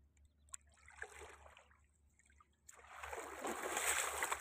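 Water splashing and sloshing as a person wades through shallow river water, starting after a quiet stretch about two-thirds of the way in and growing louder. A single faint click comes about half a second in.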